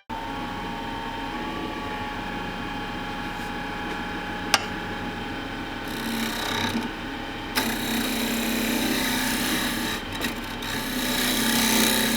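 Wood lathe running while a turning tool cuts a spinning ambrosia maple blank: a steady scraping over the low hum of the motor, with one sharp click about four and a half seconds in. The cutting grows louder a little past halfway.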